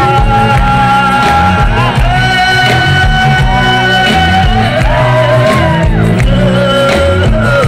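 Live Nepali folk-rock band playing loud: a singer holding long notes over electric guitars, bass and drums.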